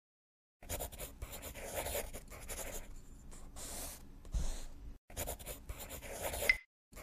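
Marker writing on a board: scratchy strokes that start about half a second in, with short breaks about five seconds in and again near the end.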